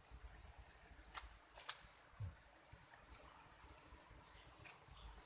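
Insects chirping in a steady, rapid high-pitched pulse, several pulses a second, with a couple of light clicks about a second and a half in.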